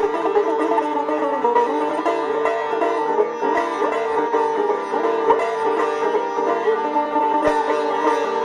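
Sitar playing a Hindustani raga: plucked melody notes with frequent gliding pitch bends, over the steady ringing of its drone and sympathetic strings.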